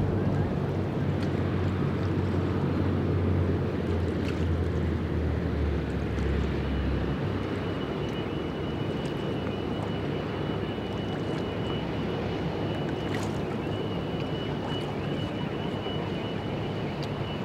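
Low, steady rumble of ship engines carrying across open water. A deeper hum in it fades out about seven seconds in, and a thin, steady high whine comes in shortly before that.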